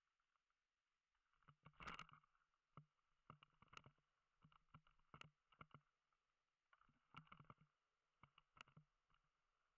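Faint, irregular knocks and rattles from a 2014 Marin Bobcat Trail 29er mountain bike jolting over rough grass and low wooden obstacles, the loudest about two seconds in, with further clusters of clicks through the rest.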